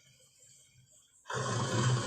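Recorded gorilla roar that starts abruptly a little over a second in, after a short quiet gap, and is loud and deep.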